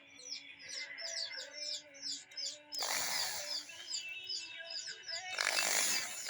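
Small birds chirping rapidly and repeatedly, with a power drill running in two short bursts: about three seconds in, and again near the end.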